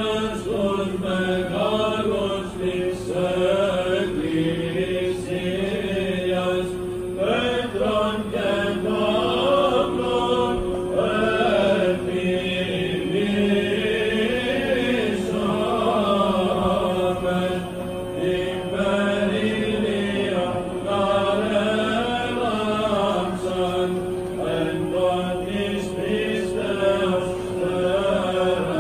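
Byzantine Orthodox chant: a slow, ornamented vocal melody sung over a steady held drone note (the ison), which breaks off briefly about eight seconds in and then resumes.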